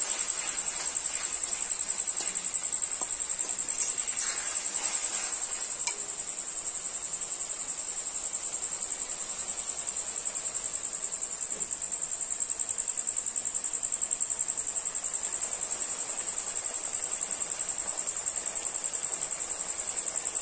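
A cricket trilling steadily at a high pitch. In the first six seconds or so, a metal spatula scrapes and stirs thick masala paste in a metal kadai as it is fried down.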